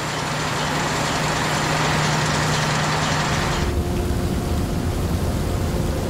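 Suction hopper dredger's large pumps running: a steady loud rush of noise over a low hum. About three and a half seconds in it cuts to the lower rumble and steady drone of the dredger's engines under way.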